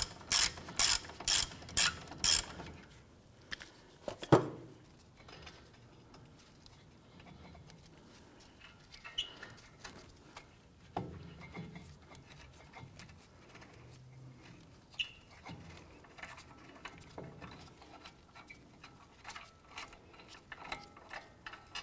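Ratchet wrench clicking at about three clicks a second as it backs out a caliper bracket bolt, stopping about two seconds in. A single sharp knock follows a couple of seconds later, then faint scattered taps and small clicks as the bolt is turned out by hand.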